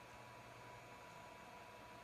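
Near silence: a faint, steady hiss with a thin steady tone and a low hum, unchanging throughout.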